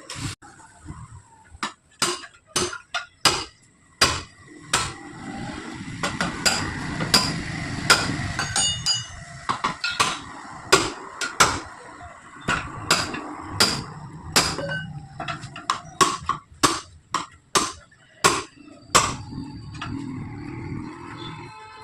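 Repeated hammer blows on a steel wheel rim and tyre bead, struck irregularly about one to two times a second, some leaving a short metallic ring, as a 7.00-15 tyre is beaten off its rim. A steady background rumble swells under the blows in the middle stretch.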